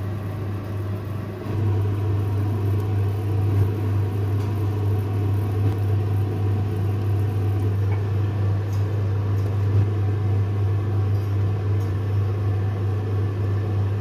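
Steady low hum and whir of a kitchen appliance running by the stove. It dips briefly in the first second or so and cuts off suddenly at the end.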